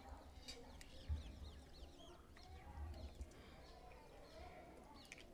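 Faint birds chirping in short repeated high calls, over a low background hum, with a few soft clicks.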